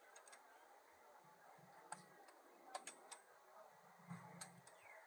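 Near silence broken by about half a dozen faint, sharp metallic clicks, irregularly spaced, from a spark plug socket wrench being worked on the engine's spark plugs.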